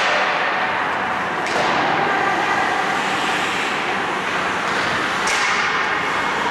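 Ice hockey skate blades scraping and carving on the ice over a steady hiss of play, with sharp scrapes at the start, about a second and a half in, and about five seconds in.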